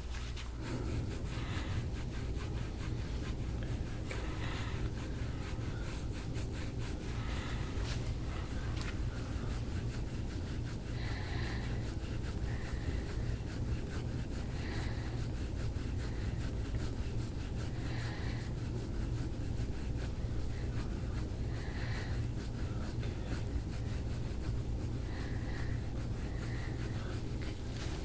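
Gua sha scraping tool drawn repeatedly over oiled skin on a man's back, a soft rubbing, with short brighter sounds recurring every three to four seconds over a steady low hum.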